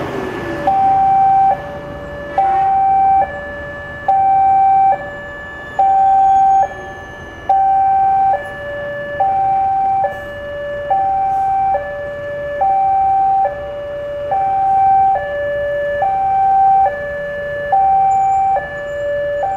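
Railway level-crossing warning alarm sounding its two-tone electronic signal, alternating a higher and a lower tone a little under once a second, while the crossing barriers come down for an approaching train.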